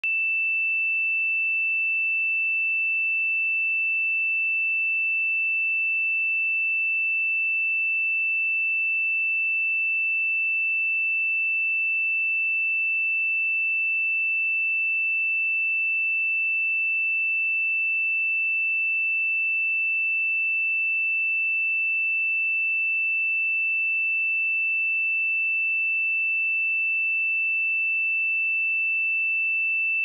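A single pure sine-wave test tone at 2656 Hz, held steady at one pitch and level, a high, clear electronic tone.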